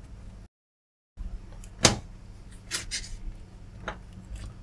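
Pocket electric screwdriver working on a screw too tight for it to undo: a few sharp clicks over a low steady hum. The sound cuts out completely for under a second about half a second in.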